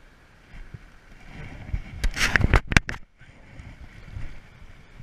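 Faint, steady flow of a small stream, broken about two seconds in by a loud burst of rustling and knocking close to the microphone that lasts about a second and cuts off sharply.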